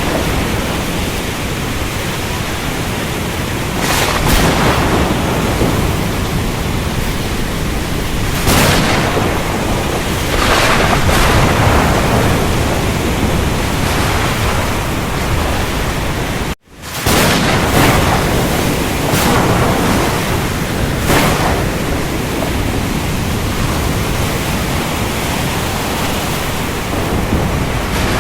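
Stormy sea: a dense, steady roar of wind and waves, with the surge of a breaking wave every few seconds. About two-thirds of the way through, the sound cuts out for a split second, then fades back in.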